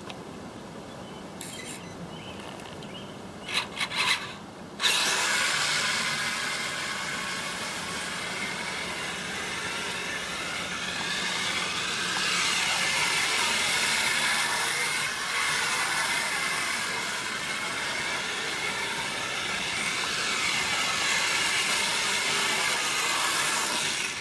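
Radio-controlled Kyosho Blizzard tracked snow cat with a 4500KV brushless motor on a 7.2 V NiMH pack, running flat out on a speed test: a steady, loud, rasping grind of tracks, gears and motor. It sets off about five seconds in after a few clicks and stops just before the end.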